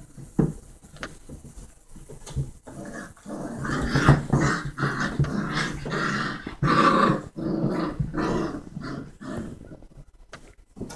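Young foxhound puppies play-growling, a quick string of short, irregular growls that starts a couple of seconds in and dies away near the end.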